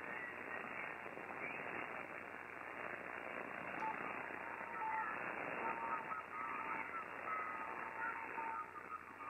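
Amateur radio receiver on the 80-meter band in lower sideband, its speaker hissing with band noise and a weak single-sideband voice faintly heard in it, as digital noise reduction is switched on. The station is down at the noise level, barely readable.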